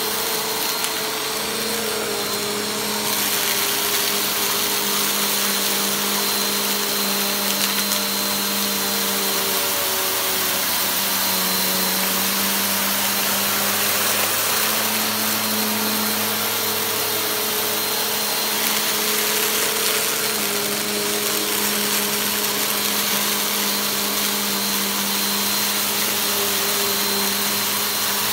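Bagless upright vacuum cleaner running steadily over carpet, its motor hum shifting slightly in pitch every few seconds, with a very light crunch of fine dirt being sucked up.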